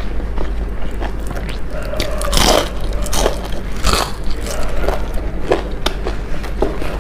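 Close-up biting and chewing of crispy fried food, with repeated sharp crunches and crackles, the loudest about two and a half and four seconds in.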